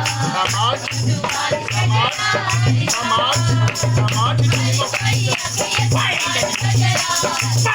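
Music with a shaker-like rattle rhythm over a low bass note that repeats in short pulses, with pitched lines that waver above.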